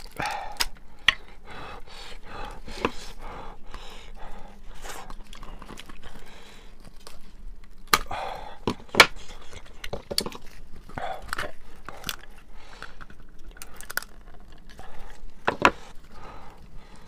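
A cooked sheep's head being pulled apart by gloved hands and cut with kitchen shears: wet tearing of meat and skin, broken by many sharp clicks and snaps.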